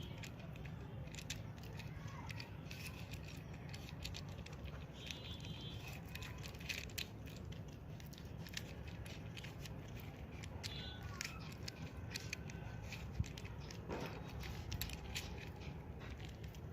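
Irregular plastic clicks and rattles of a small 3×3 Rubik's cube being twisted layer by layer, its layers turning tightly, over a steady low hum.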